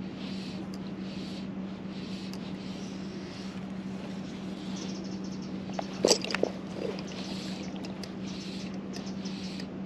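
Steady rush of river water, with a brief cluster of sharp clicks and knocks about six seconds in.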